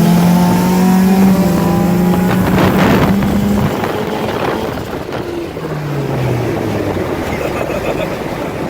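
Turbocharged car engine under hard acceleration, its note climbing steadily, then breaking off about four seconds in, with road and wind noise running on underneath.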